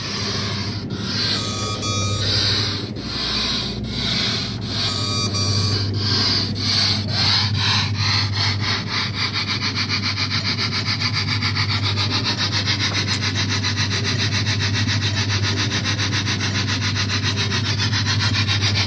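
Coin-operated kiddie train ride running, its sound unit playing a steam-train chuffing that starts at about one chuff a second and speeds up from about seven seconds in to a rapid, even chuffing, over a steady low hum.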